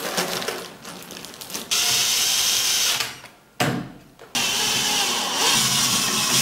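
Cordless drill-driver running, driving screws to fix a metal corner bracket into a chipboard drawer. It runs steadily for about a second, stops briefly, then runs again from about four seconds in. Before it, small metal hardware rattles as it is handled.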